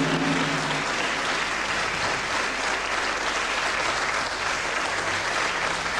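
Studio audience applauding steadily after a correct answer.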